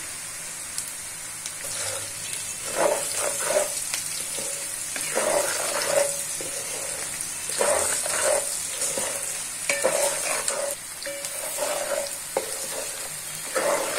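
Sliced onions sizzling steadily in hot oil in a pot, softening without browning, with a wooden spatula scraping and stirring through them in strokes every couple of seconds.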